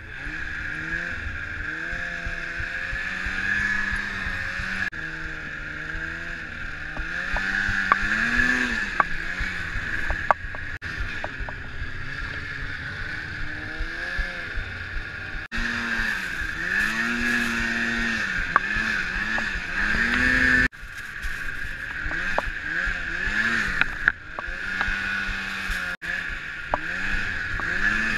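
Snowmobile engine running under way, its pitch rising and falling again and again as the throttle is opened and eased, with a steady high whine over it. The sound breaks off and picks up again abruptly several times.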